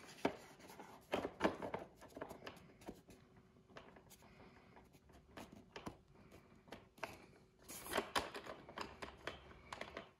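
Foam wing panel of an E-flite F-16 RC jet being pushed onto its wing tube and seated against the fuselage by hand: faint rubbing and scraping with light clicks of foam and plastic, in a few short clusters, the busiest about a second in and near the end.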